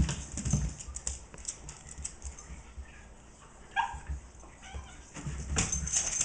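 Min pin/jack russell cross puppy play-fighting with a kitten: a thump at the start, then scuffling and knocks on a rug and wooden floor, with one short high yip from the puppy about four seconds in.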